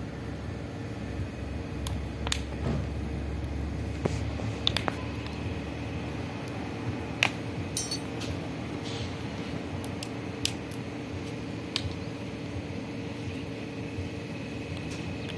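Scattered light clicks and clinks, with a brief rattle about eight seconds in, as a CV drive axle and small hand tools are handled on a concrete floor, over a steady low hum.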